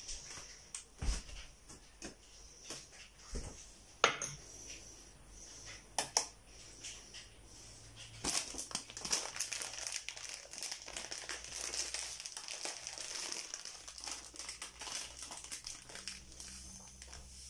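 A few sharp knocks of things being set down on a tabletop, then a plastic bag of white powder crinkling and rustling steadily as it is handled and opened, for most of the second half.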